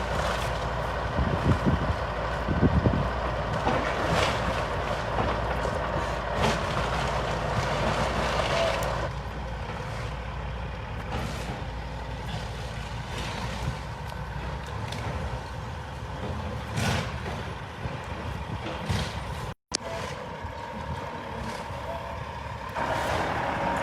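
Heavy earth-moving machinery running steadily, with a few sharp clanks in the first three seconds. The sound steps down about nine seconds in, drops out for a moment near twenty seconds, and gets louder again near the end.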